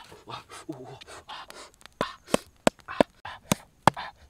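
A wooden stick scraping and raking through ash and charcoal embers. About two seconds in, a quick series of sharp wooden knocks starts, about four a second, as a wooden stake is driven into the ground of the fire pit.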